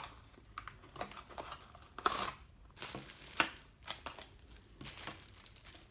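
Small product packaging being opened by hand: irregular rustling and handling noise with a few sharp clicks, the loudest about two seconds in.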